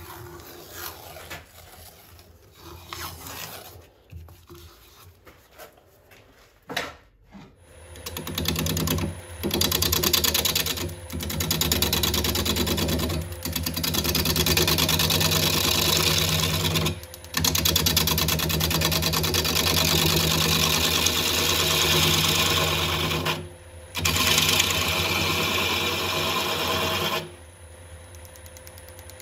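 Wood lathe spinning a birch workpiece while a turning tool cuts into it: a steady, loud shearing hiss over the motor's hum, broken by brief gaps when the tool lifts off. For the first several seconds the lathe is stopped and there is only quieter rubbing and handling.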